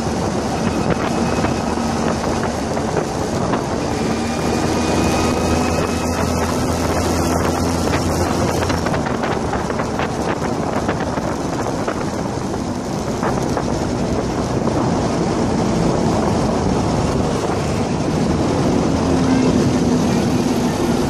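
Small go-kart engine running steadily while driving along a street, with wind buffeting the microphone and tyre and road noise. Its note climbs gradually over the first several seconds.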